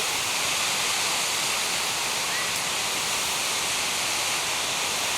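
Sipi Falls waterfall pouring: a steady, even rush of falling water.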